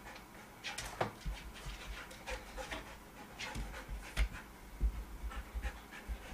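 Golden retriever panting in quick breaths, with several short low knocks, the loudest about four and five seconds in.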